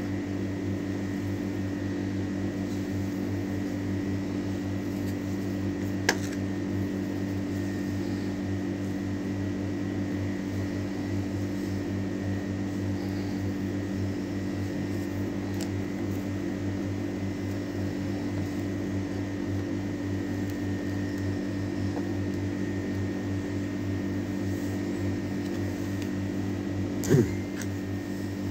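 Steady hum of a small motor running: a low drone with a faint high whine, unchanging throughout. A sharp click about six seconds in and a louder knock near the end.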